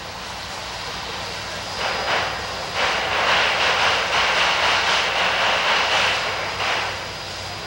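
Chesapeake & Ohio 2716, a 2-8-4 steam locomotive, letting off a loud hiss of steam: two short bursts about two seconds in, then a long blast of about three seconds and one last short puff before it stops, over a steady low rumble.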